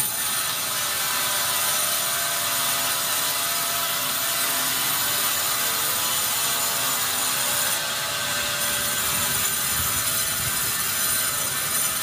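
Vertical band saw at a sawmill cutting lengthwise through a large, hard pine log: a steady sawing noise with the mill's machinery running underneath.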